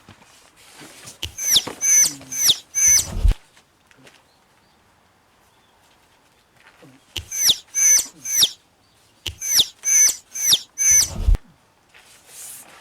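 A bird calling in three bursts of short, high, shrill cries, each falling in pitch. A low thump comes at the end of the first and last bursts.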